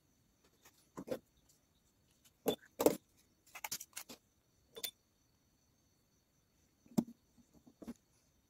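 Handling noise of a small motor and plastic tube being picked up, turned and set down on a table: scattered clicks and knocks, the loudest a few seconds in and again about seven seconds in.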